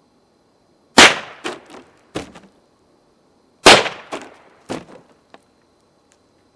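Two shots from a Marlin Model 60 semi-automatic .22 LR rifle, about two and a half seconds apart, each sharp crack followed by a few fainter cracks.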